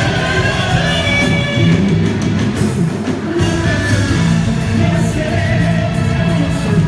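Loud amplified music with a singing voice and a steady beat: the song accompanying a quadrilha junina dance performance.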